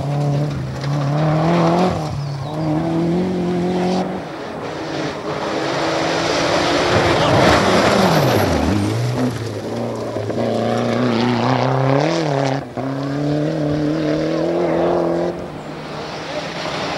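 Rally cars passing one after another on a gravel stage, their engines revving hard and dropping in pitch at each gear change, with gravel spraying from the tyres. About eight seconds in, one car's engine pitch sweeps sharply down and back up as it passes close.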